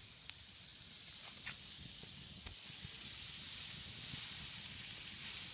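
Butter and tilapia fillets sizzling in a perforated pan over a campfire. The sizzle gets louder about three seconds in, with a few light ticks.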